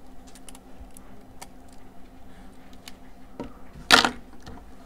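Light clicks and knocks of a rubber-banded bundle of Sharpie markers being picked up and handled over a paper pad, with one louder clatter about four seconds in.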